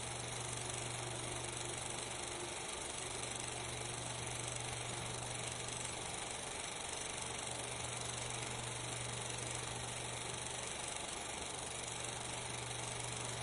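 Steady hiss with a low hum underneath, unchanging throughout: the background noise of a silent 16mm film transfer, with no sound from the scene itself.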